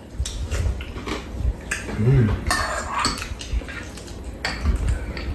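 Metal spoons clinking and scraping against ceramic bowls during a meal, in scattered light clicks. A brief voice sound comes about two seconds in.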